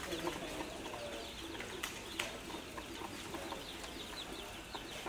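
A crowd of baby chicks peeping continuously, many short falling chirps overlapping, with two sharp clicks about two seconds in.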